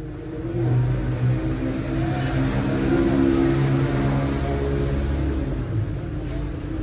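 An engine running steadily, its note drifting slightly in pitch.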